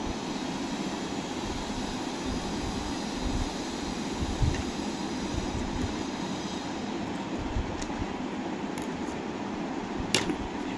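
Steady low background hum, with a few small knocks of eating and, near the end, one sharp ringing clink of a metal spoon against the curry bowl.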